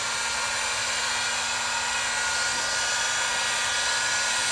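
Pro.point heat gun running steadily: an even rush of blown air with a steady whine. It is reheating leftover molding tape adhesive to soften it for rubbing off.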